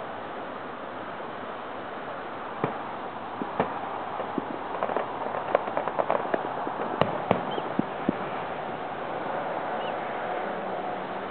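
Distant fireworks: an irregular scatter of sharp pops and cracks from about two and a half seconds in until about eight seconds, the loudest about seven seconds in, over a steady background hiss.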